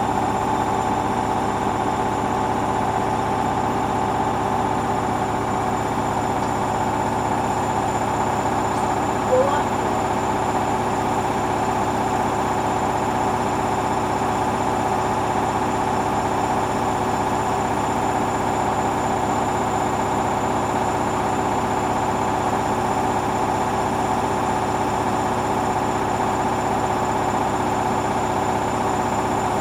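Hoover washing machine's motor turning the drum at a steady speed in the final spin, a steady whine over the running of the drum. A brief chirp about nine seconds in.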